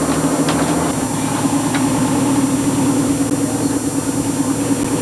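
Boat engine running steadily, a low droning hum, with a lower tone dropping away about a second in.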